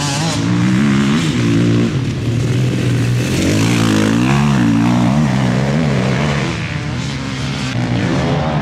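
Enduro motorcycle engine revving, its pitch rising and falling over and over as the throttle is worked.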